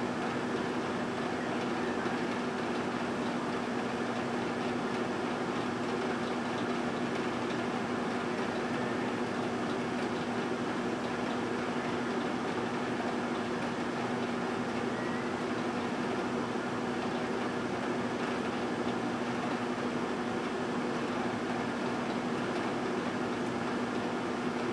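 A 1978 GE Dual Wave microwave oven running a heating cycle: a steady electrical hum over the even rush of its fan, unchanging throughout.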